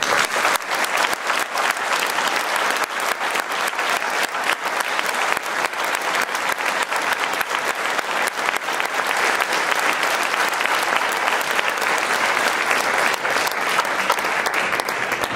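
Audience and performers applauding in a hall: sustained, dense clapping that holds steady throughout.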